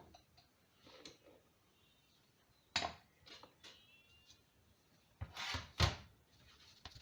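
Clatter and scraping of hand tools and a metal power steering pump body being handled on a workbench as cleaning starts: a sharp knock about three seconds in, then a few louder rubbing, scraping sounds near the end.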